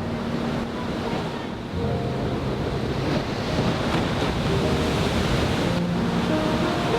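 Ocean surf breaking and washing up a beach in a steady rush, with wind buffeting the microphone.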